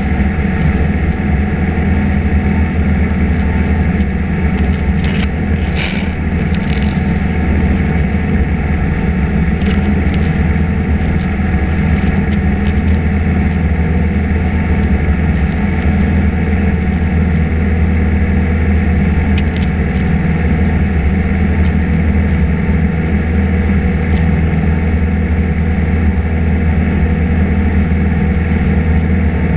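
Piper PA-28 Cherokee's piston engine and propeller droning steadily in flight, heard inside the cabin. A short burst of hiss comes about six seconds in.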